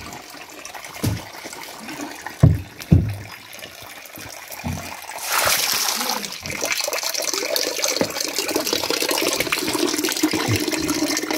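Apple juice running from a wooden basket fruit press down a hose into a plastic bucket, a steady trickling that sets in about five seconds in. Before it come a few short, dull thumps, the loudest two close together about two and a half seconds in.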